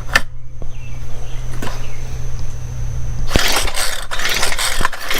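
Stihl string trimmer's two-stroke engine being cranked on its pull-starter with a compression gauge in the spark-plug hole. About three and a half seconds in, a rapid run of rattling knocks starts. The gauge reads about 40 against the 150 expected: compression far too low, a sign of a major internal fault such as damaged rings or a cracked piston or cylinder.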